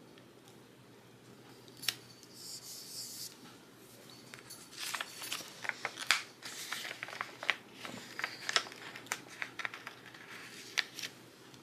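Paper sticker sheets being handled: a short rustle, then a run of small ticks, taps and paper rustles as the sheets are leafed through.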